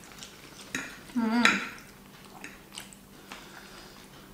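Metal fork clinking and scraping against a ceramic plate while twirling linguine, in scattered small clicks. About a second in comes a brief, louder wavering pitched sound.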